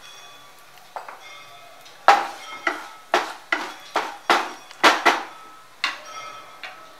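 Spatula knocking against a nonstick frying pan while stirring whole spices in oil: a quick, uneven run of sharp knocks, about two a second, from about two seconds in to near the end.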